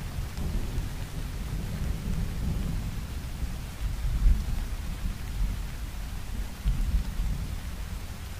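Thunder-and-rain sound effect in the outro of an electronic music track: a deep rolling rumble under a faint hiss, swelling about four seconds in and again near seven seconds, with no beat or melody.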